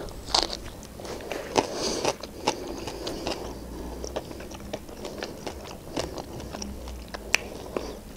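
A person biting into and chewing a flatbread-wrapped chicken shawarma, with many small irregular mouth clicks; the sharpest come about a second and a half in and near the end.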